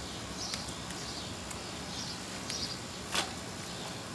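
Outdoor garden ambience: faint, repeated short bird chirps over a steady hiss, with a few sharp clicks, the loudest about three seconds in.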